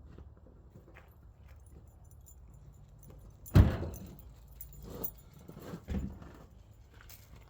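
1993 Ford Ranger's 3.0 V6 idling steadily with a slight misfire. A loud metallic clank comes about three and a half seconds in, followed by a few lighter clanks, from tie-downs rattling in the truck bed.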